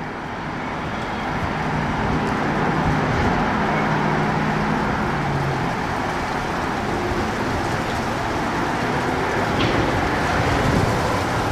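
Steady road-traffic noise, with a low engine hum that fades out about halfway through.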